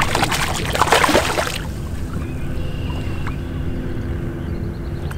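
Smallmouth bass splashing and thrashing at the surface beside the boat as it is reached for and landed by hand, for about the first second and a half; then a steady low rumble.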